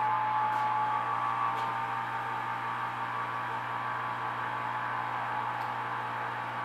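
Home brewing rig running during mash recirculation: a steady pump hum with two steady whistling tones over it and a light even hiss from the burner side.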